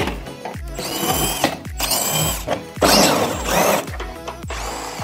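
Cordless power driver running in three short bursts, each spinning up and then holding, as it backs out the fasteners of an underbody side panel. Background music with a steady beat plays underneath.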